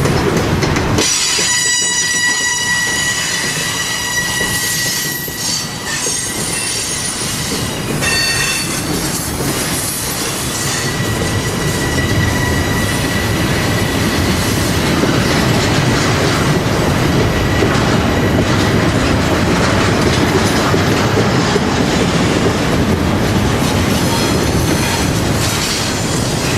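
A train's railroad cars rolling past, a steady rumble with wheels clattering over the rail joints. High-pitched wheel squeal rings out about a second in and again through the middle stretch.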